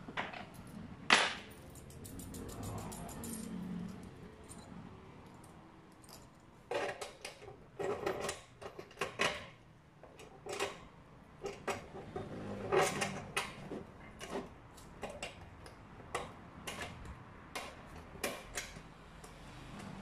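Metal clinking, tapping and knocking as a lock and its mounting nut are handled and fitted into the panel of a box, with a sharp knock about a second in and scattered clicks after.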